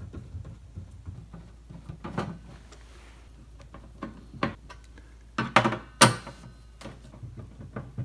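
Phillips screwdriver backing screws out of a gas cooktop's sheet-metal rear panel: faint scattered clicks and scrapes, with several sharper metallic knocks, the loudest about three-quarters of the way through.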